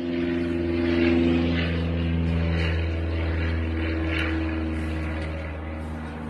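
A steady low motor drone made of several held pitches, swelling a little in the first second and then slowly easing off.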